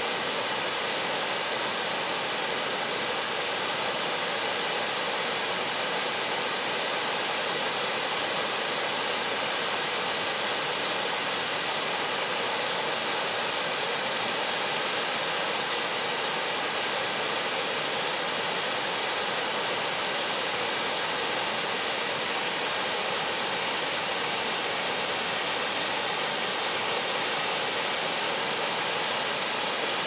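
Ban Gioc Falls, a wide multi-tiered waterfall, pouring over its cascades into the river pool: a steady, even rush of falling water.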